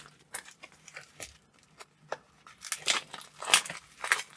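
Plastic packaging crinkling and being torn open by hand, in irregular crackles that grow busier and louder in the second half.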